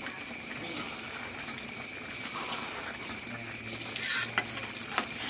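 Thick chili sauce being stirred in metal woks over a gas flame: a steady wet stirring and sizzling, with the ladle scraping and a few light knocks against the pan in the second half.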